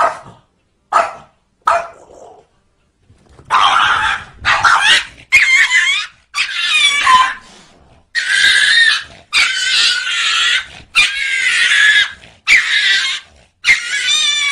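Small dog barking sharply three times, then, after a short pause, a long run of wavering high-pitched snarls and squeals, one after another, from a small dog scuffling with a cat.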